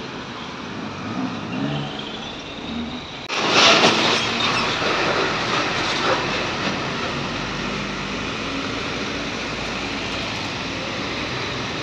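Road traffic passing close by: the engines and tyres of Toyota HiAce minibuses and other vehicles. About three seconds in the sound jumps louder as a vehicle passes near, then settles into steady traffic noise.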